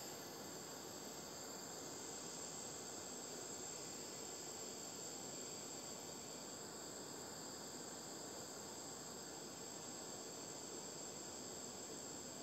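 Handheld butane torch flame hissing faintly and steadily.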